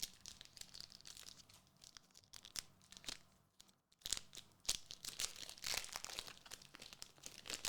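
Foil booster-pack wrappers from a Gundam trading card box being torn open and crinkled, with a short lull about four seconds in and louder crinkling after it.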